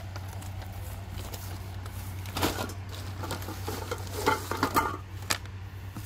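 Thin plastic carrier bag rustling and crinkling as plastic bowls are pulled out of it and set down, with several sharp clicks of plastic near the end.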